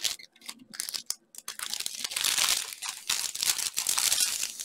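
Thin clear plastic bags crinkling as hands press and sort through them: a few light clicks at first, then steady crinkling from about a second and a half in.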